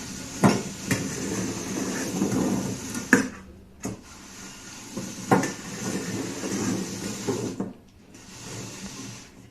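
Dishes being moved around on a tabletop: a steady sliding, scraping rustle broken by about half a dozen sharp knocks and clinks, dying away near the end.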